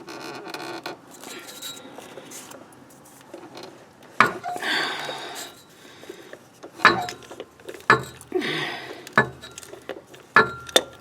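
Ratchet, extension and socket working a starter mounting bolt loose under a Jeep: scattered metallic clinks and clanks with short ringing, a few sharp knocks from about four seconds in.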